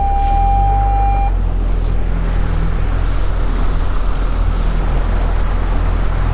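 Outboard motor running with the boat under way, with wind and water rushing past. A steady high electronic beep holds for about the first second, then stops.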